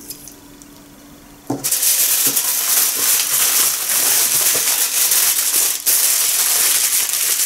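Aluminium foil crinkling and rustling loudly as it is handled and wrapped around a marinated chicken drumstick, starting abruptly about a second and a half in.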